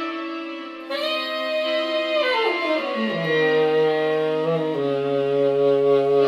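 Tenor saxophone with effects holding long notes, several pitches sounding together, with a downward slide in pitch about two and a half seconds in.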